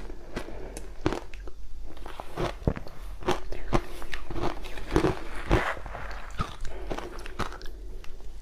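Close-miked crunching and chewing of crushed ice with passion fruit: a run of irregular, crisp crunches as the ice is bitten and chewed, loudest about five seconds in.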